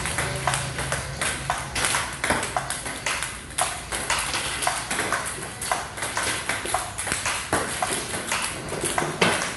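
Table tennis balls clicking off paddles and the tabletop in multiball practice: a quick, uneven run of sharp ticks, several a second, as balls are fed and hit back.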